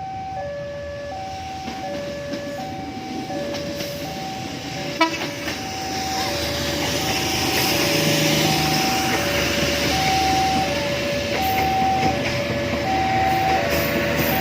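Two-tone electronic level-crossing warning alarm, a high and a low tone alternating about once a second. From about five seconds in, the rising running noise of an approaching train grows under it, with a single sharp click just as it starts.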